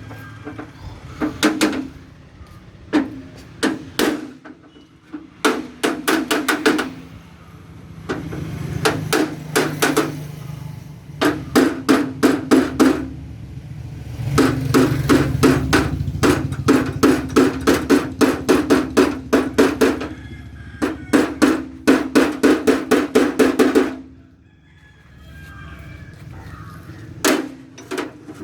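Rapid runs of hammer blows on a tractor's sheet-metal mudguard, about five strikes a second, each run lasting from a second to several seconds, with a ringing metallic tone under each blow. A low hum carries on between the runs.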